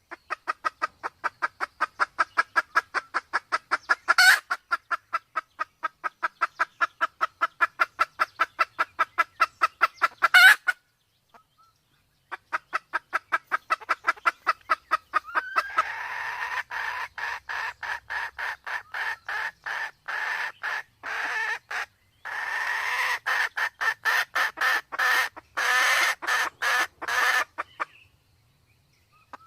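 Red junglefowl hen clucking in a fast, even series of about four to five clucks a second, with two louder calls cutting in. After a short break near the middle the clucking resumes harsher and denser. This is the excited clucking of a hen in heat.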